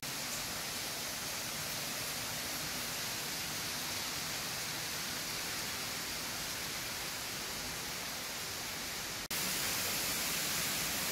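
Steady rush of floodwater pouring into a flooded mine tunnel. It breaks off for an instant about nine seconds in and comes back a little louder.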